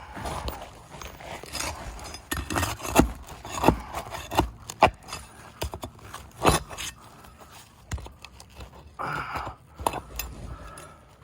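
Irregular scraping with sharp clicks and knocks as roof shingles are pried up to pull out the staples holding them down, which are hard to get out.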